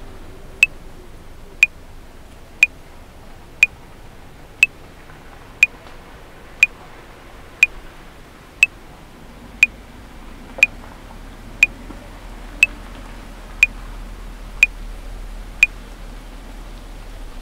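Metronome clicking at 60 beats per minute, one click a second, sixteen clicks in all (four bars of 4/4), stopping about a second and a half before the end. A faint steady background noise runs under the clicks.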